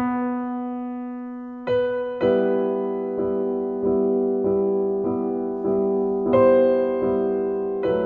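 Piano music: a single held note, then chords struck over and over about every 0.7 seconds, with a higher note joining near six and a half seconds.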